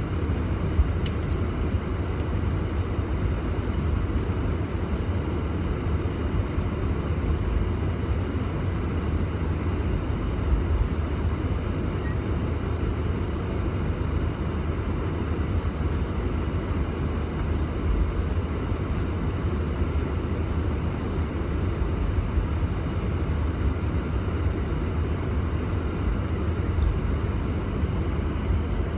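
Steady cabin noise inside a Boeing 747-400 taxiing in after landing: its Rolls-Royce RB211 engines at low taxi power over a deep rolling rumble from the undercarriage. A single brief click sounds about a second in.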